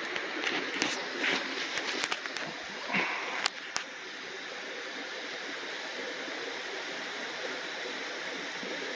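Mountain stream running steadily, with a few short splashes and clicks in the first four seconds as a brown trout is lifted out of a landing net.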